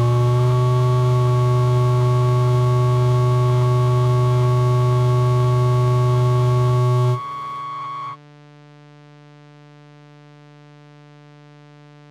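Eurorack modular synthesizer holding a loud, steady drone of several tones over a hiss of white noise. About seven seconds in, the noise and the lowest tones cut out, and a second later most of the rest drops away, leaving a quiet held chord.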